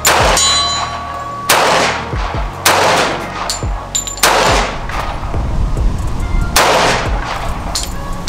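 A compact 1911 pistol firing .45 ACP 230-grain full-metal-jacket rounds: five single shots at an uneven pace, one to two and a half seconds apart, each with a short ring-out.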